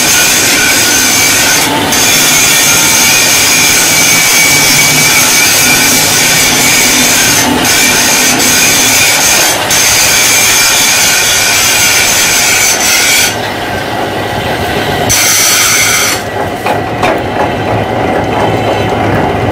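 Metal lathe working a coarse thread on a spinning steel shaft: a loud, steady scraping grind of metal on metal with high whining tones. It eases off for a couple of seconds about two-thirds of the way through, then turns uneven near the end.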